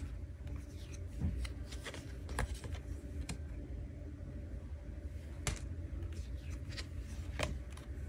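Paper message cards handled on a wooden table: scattered soft taps, slides and flicks as cards are drawn from the deck, flipped and laid on the pile. A steady low hum lies underneath.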